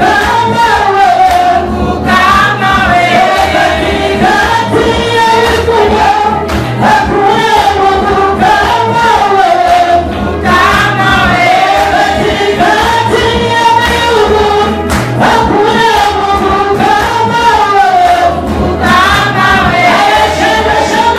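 A woman leading a gospel praise song through a microphone, with a group of women singing along over a steady beat.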